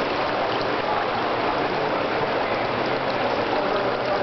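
Steady rushing water in a swimming pool, an even wash of noise with no breaks.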